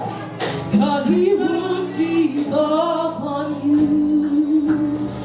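Gospel praise music: voices singing held, sliding notes over a steady instrumental backing.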